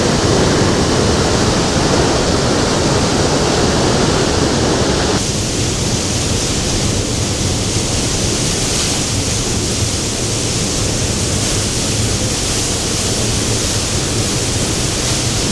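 Steady, loud rushing of a powerful waterfall heard at close range: the 80-metre falls where the Pastaza River plunges through a narrow canyon. Its tone shifts abruptly about five seconds in.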